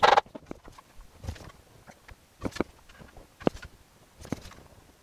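A mallet knocks against the clamped wooden chair frame to bring the assembly square. The loudest hit comes right at the start, followed by a few lighter, separate knocks and clicks about a second apart.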